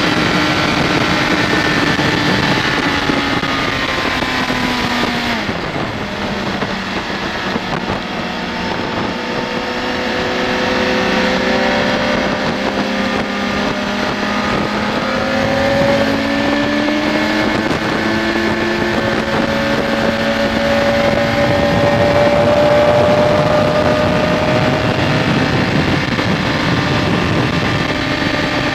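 BMW K1200S inline four-cylinder engine running under heavy wind noise on the move. The engine note drops about five seconds in, holds lower, then climbs steadily from about twelve seconds as the bike accelerates.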